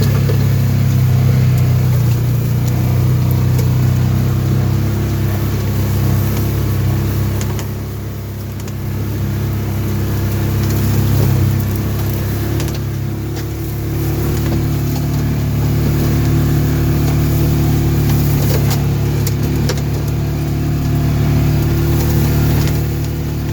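Side-by-side UTV engine running steadily while driving, its note shifting a little with the throttle.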